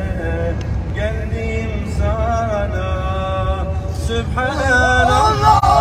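Men singing a slow, drawn-out melody into a handheld microphone, the voices bending and wavering on held notes and growing louder and more ornamented after about four seconds. Underneath runs the steady low rumble of a bus.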